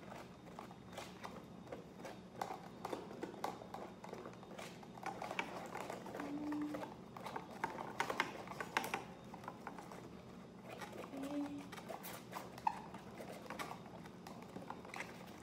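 Paintbrush spreading glue over a cardboard tube: light scratchy brush strokes and small taps, busiest in the middle, with a few handling knocks on the table.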